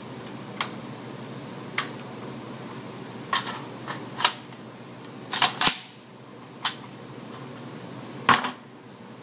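Gunshots and sharp clicks in an indoor range: a string of single cracks, the loudest near the middle and about eight seconds in, some with a short echo. They include a .300 Blackout AR-15 with a Silencerco Osprey 45 suppressor firing.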